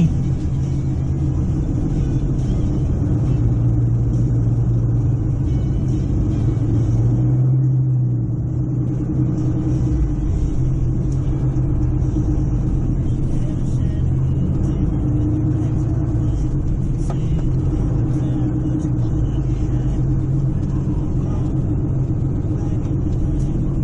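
Motor vehicle engine running steadily at low speed, with a continuous low hum that eases off briefly about eight seconds in.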